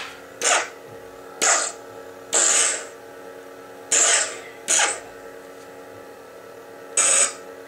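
Lightsaber sound-board hum from a Plecter Labs Prizm 5.1 through a small 20 mm speaker, steady throughout, broken six times by short, sharp sound-font effects. The third is the longest.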